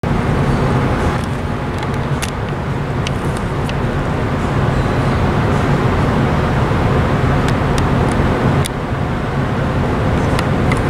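Steady low rumble of a cruise ship's engines under way, with a few faint ticks over it.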